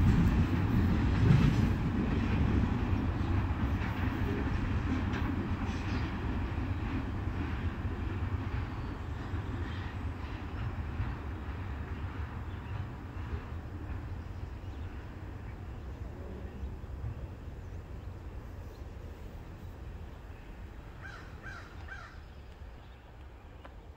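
Freight cars of a trash train rolling away on the track, their wheels' low rumble and clatter fading steadily as the train recedes.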